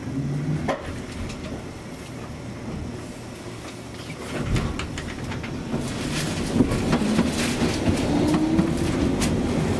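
Hankai Tramway streetcar running, heard from inside the car: a steady rumble with scattered clicks from the wheels on the rails. It grows louder from about halfway through, and near the end a faint whine rises slowly in pitch as the tram gathers speed.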